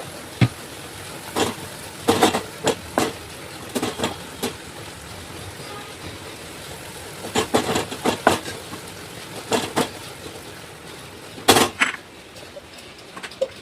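Irregular knocks and clatters in small clusters, with a steady background noise between them.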